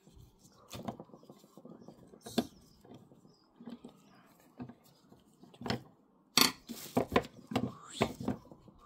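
Screwdriver working the screw out of a skillet's plastic handle, with scattered small clicks and scrapes of metal on metal; in the second half, a run of louder clacks and knocks as the loosened handle shifts against the stainless-steel pan.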